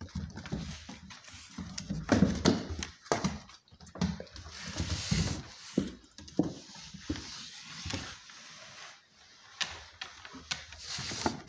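Puppies playing on a wooden floor: irregular thumps, scrapes and clicks of paws and bodies on the boards, loudest a couple of seconds in and again about halfway through.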